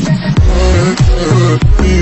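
Background electronic music with a heavy beat and deep bass notes that slide down in pitch.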